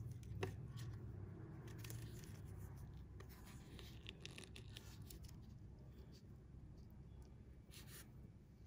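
Fingers handling a fishing hook and monofilament line while a knot is pulled tight, making faint scattered rubbing and small clicks over a low steady rumble.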